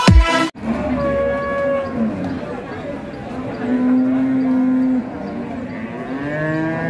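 Electronic music cuts off about half a second in, then cattle moo several times: a call with a falling end, a long, level low moo in the middle, and a rising call near the end.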